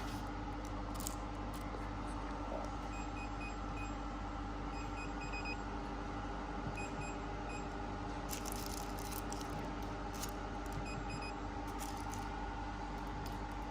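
Steady machine hum made of several even tones, with faint short high pips in the middle.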